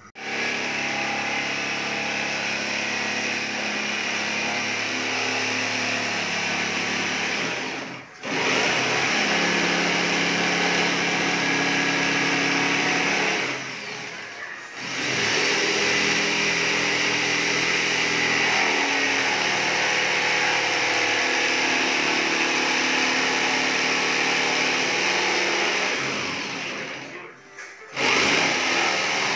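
Corded jigsaw cutting through a plywood sheet, running steadily and stopping briefly three times: about a quarter of the way in, near the middle and near the end.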